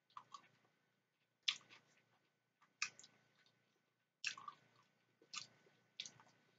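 Metal fork clicking and scraping in a clear plastic tub of macaroni salad, a sharp tick every second or so, with soft chewing.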